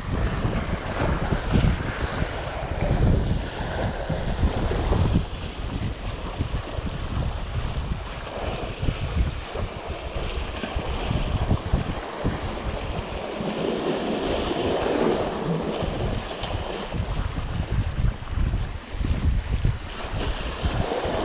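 Wind buffeting the microphone over waves washing and splashing against the boulders of a rock breakwater, the surf swelling and falling away.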